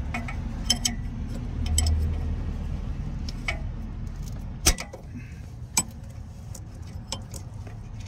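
Wrench clicking and tapping against the steel fittings as a high-pressure fuel line nut on an L5P Duramax engine is worked loose: scattered sharp metallic clicks, the loudest about four and a half seconds in, over a low steady rumble.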